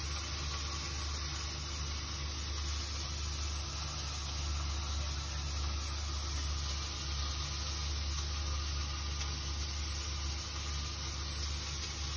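A steady, even hiss over a low hum, unchanging throughout.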